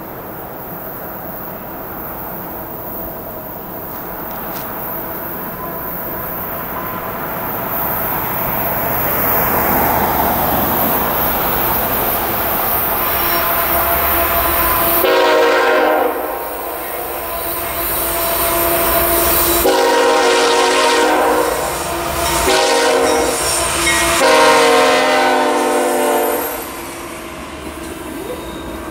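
A CSX freight train approaching, its rumble slowly building, then the locomotive's horn sounding a series of loud blasts, several long ones and a short one, over some ten seconds from about halfway through. After the horn stops, the double-stack container cars roll past close by.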